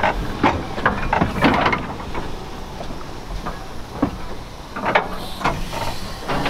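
Narrow gauge steam locomotive standing at the platform, with irregular knocks and clicks and a steam hiss that grows louder about five seconds in.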